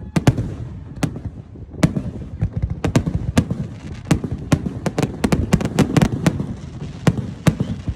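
Fireworks display: a rapid, irregular run of sharp bangs and cracks over a low rumble, thickest past the middle.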